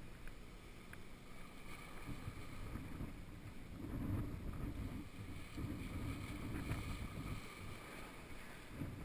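Wind buffeting a GoPro's microphone in gusts, over the wash of sea surge breaking on rocks.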